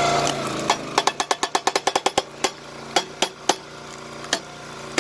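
Eucalyptus hardwood cracking under a 22-ton log splitter's wedge: a quick run of sharp cracks and pops starting about a second in, thinning out to a few toward the end, over the steady running of the splitter's small gas engine.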